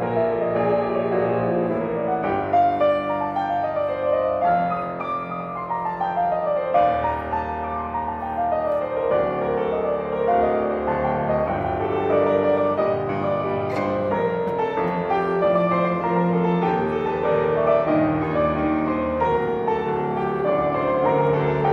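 Grand piano played solo, a continuous stream of notes with runs stepping up and down the keyboard.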